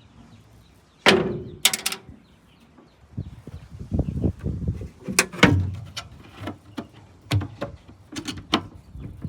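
Metal clanks and knocks from a swing-out truck toolbox being handled: two loud ringing bangs about a second in, then a run of smaller knocks and rattles.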